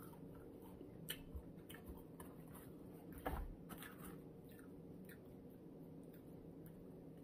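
A person chewing and biting into fried shrimp: faint soft crunches and small clicks, the loudest about three seconds in.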